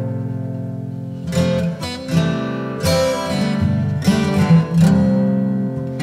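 Background music of strummed and plucked acoustic guitar, with chords struck every half second to a second and left to ring.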